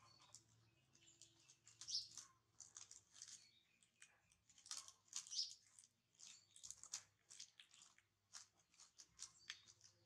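Faint, irregular crinkling and crackling of plastic candy wrappers being handled, mixed with a baby monkey chewing candy.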